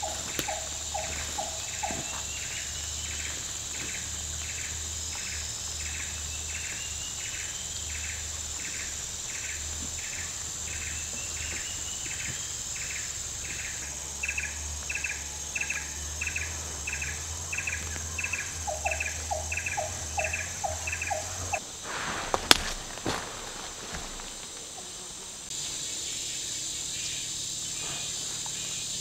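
Forest insect chorus: a steady high buzz with a rhythmic chirping call about twice a second. The chirping stops about 22 seconds in, with a sharp knock.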